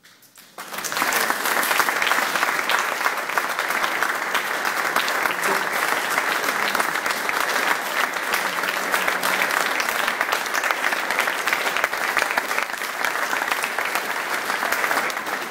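Audience applauding. The clapping starts abruptly about half a second in and keeps up steadily.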